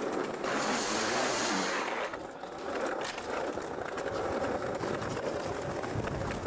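Skateboard wheels rolling over tiled paving, with a louder scraping of the board along the ledge from about half a second to two seconds in, then a few sharp clacks of the board.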